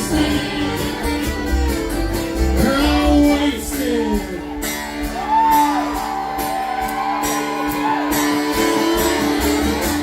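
Acoustic folk band playing a song: guitar over a pulsing low end, with a voice singing long, bending notes.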